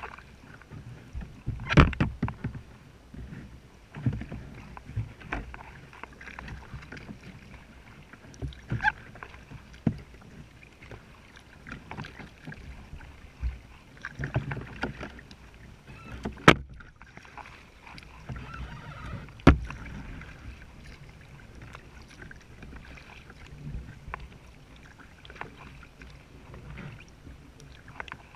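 Kayak being paddled: paddle strokes splashing and water sloshing along the plastic hull, with scattered sharp knocks, the loudest about sixteen and nineteen seconds in.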